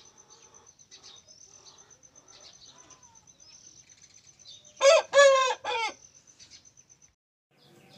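Aseel rooster crowing once about five seconds in, a crow of about a second in three linked parts, over faint chirping of small birds.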